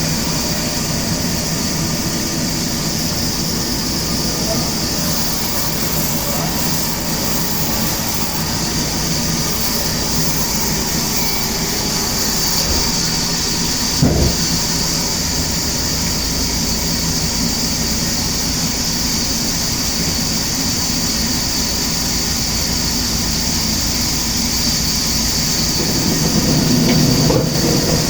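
Sawmill machinery running with a loud, steady mechanical din and a high hiss. There is a single knock about halfway through, and the noise swells louder near the end.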